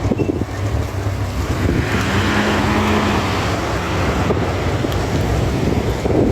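Steady low engine rumble mixed with wind buffeting the microphone, with a brief steady hum about two seconds in.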